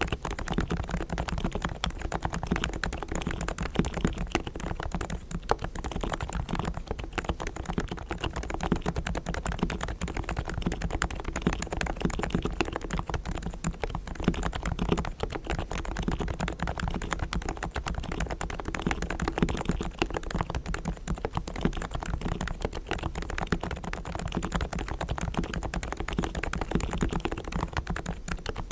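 Fast, continuous typing on a Realforce R3 tenkeyless electro-capacitive (Topre) keyboard with 45 g silenced equal-weight switches, its springs, sliders and stabilizers lubricated with Krytox and its case foam-dampened.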